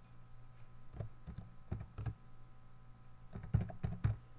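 Computer keyboard keystrokes: a few separate taps, then a quicker cluster of keys near the end, over a low steady hum.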